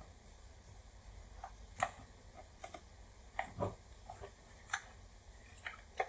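A metal pick tool clicking and scraping against the plastic case of an Apple power adapter as its glued seam is pried apart: irregular faint clicks, the sharpest about two seconds in.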